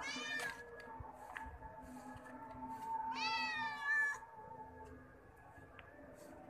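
A kitten meowing twice: a short meow right at the start and a longer, louder meow about three seconds in.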